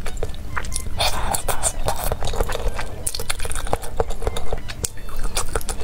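Close-miked eating: wet, sticky chewing and lip smacks from a mouthful of thick noodles in spicy sauce, with many short sharp clicks throughout.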